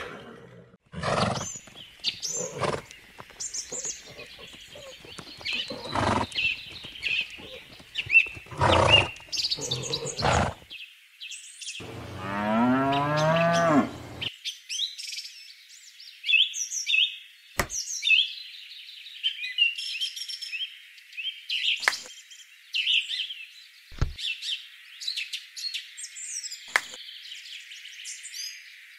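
Birds chirping throughout, with several sharp knocks in the first ten seconds. About twelve seconds in comes a two-second animal call with a wavering pitch.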